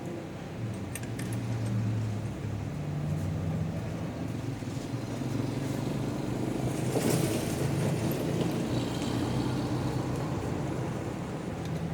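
An engine running with a steady hum, its pitch shifting up and down, growing louder about seven seconds in.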